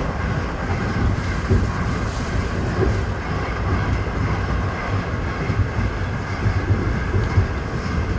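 Moving train running with a steady low rumble and irregular knocks.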